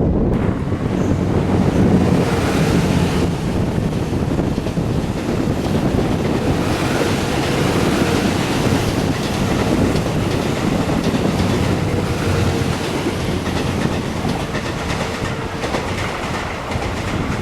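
TWILIGHT EXPRESS Mizukaze, a JR West Kiha 87 series diesel-electric hybrid train, running past on the rails, with a steady tone under it that fades near the end.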